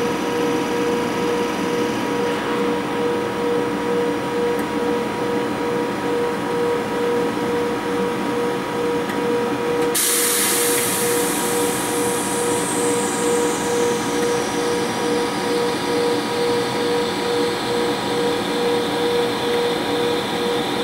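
Standing British Rail Class 92 electric locomotive with its on-board equipment running: a steady electrical hum and whine with a slightly pulsing tone. About halfway through, a sudden high-pitched hiss starts and slowly fades away.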